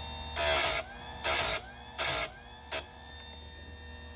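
Small electric chainsaw chain sharpener grinding a chain tooth in four passes: three short grinds of about half a second each, then a brief final touch. The steady hum of its running motor sounds underneath.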